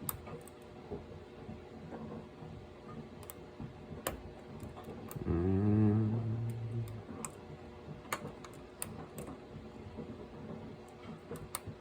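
Lock pick and tension wrench working in a pin-tumbler lock: scattered small metallic clicks and taps as the pins are lifted and set. About five seconds in, a low hum swells up and lasts under two seconds.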